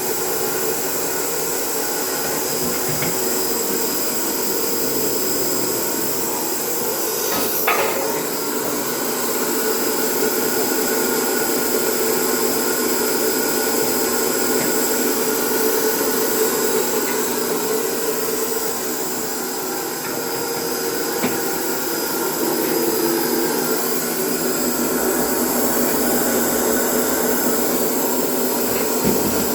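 MSS-S1W1 edge sanding machine running steadily, its motors and sanding belt giving a constant whine of several steady tones over a hiss, with one sharp knock about eight seconds in.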